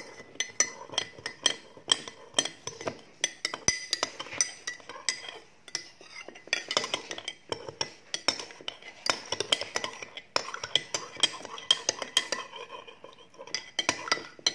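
Metal spoon stirring inside a small glass mug, clinking against the glass in rapid irregular runs of several clinks a second with brief pauses, as sugar and salt are stirred into water to make oral rehydration solution.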